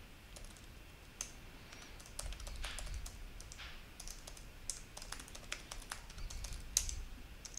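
Computer keyboard keys being typed at an irregular pace, a string of faint separate key clicks as a terminal command is entered.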